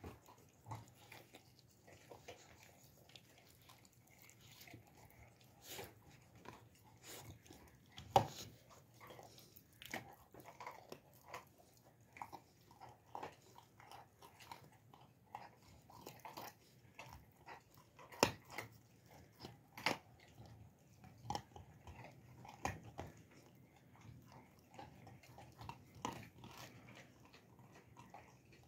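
Alabai (Central Asian Shepherd) puppy chewing and gnawing on a piece of raw meat: irregular crunches and teeth clicks, a few louder bites about 8, 18 and 20 seconds in.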